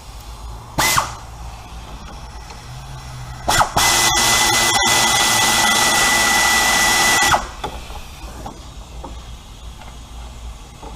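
Drill-type power tool motor whirring at a steady pitch: a short burst about a second in, then a longer run of about three and a half seconds that cuts off abruptly.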